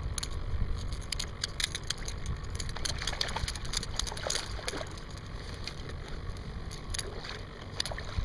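Water splashing and lapping beside a kayak, with wind rumbling on the microphone and scattered light clicks.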